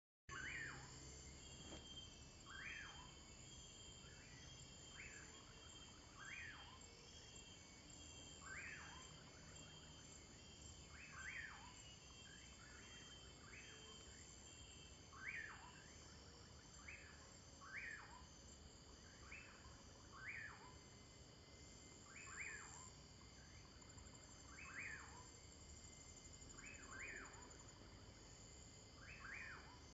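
Forest at night: a steady high insect chorus, with a short downward-sweeping call repeated every second or two, sometimes twice in quick succession.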